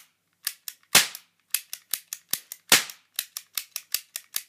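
Toy cap-gun revolver being fired with the trigger pulled rapidly: two loud cap bangs about a second and three-quarters apart. Between and after them comes a quick run of smaller sharp clicks, about five a second, where the gun clicks without a loud bang.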